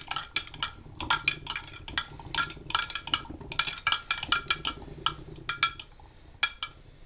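A long utensil stirring liquid in a three-litre glass jar, clinking and knocking rapidly and unevenly against the glass. There is a short lull near the end, then a few more clinks.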